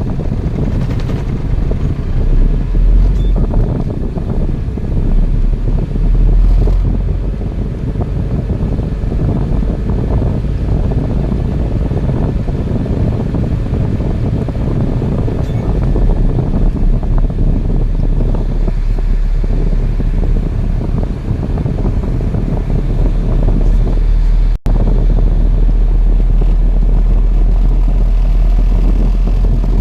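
Road vehicle on the move: a loud, steady low rumble of engine and road noise, broken once by a split-second dropout about two-thirds of the way through.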